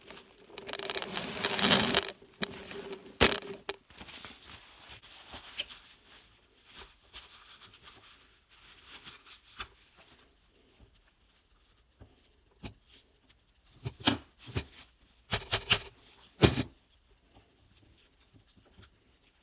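Metal parts of a CV axle joint being handled during disassembly: a scraping rustle about a second in, then scattered light metallic clicks, with a quick run of clicks about three-quarters of the way through.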